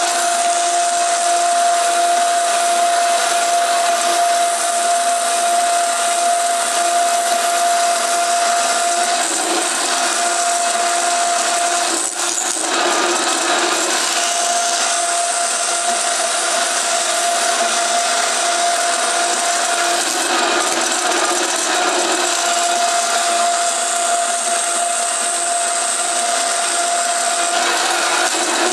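Band saw running and cutting a thin aluminium plate: a steady motor whine under the continuous noise of the blade through the metal, with a brief dip about twelve seconds in.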